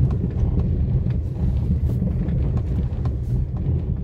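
Car interior noise while driving on an unpaved dirt track: a steady low rumble of tyres and engine, with scattered light clicks and rattles.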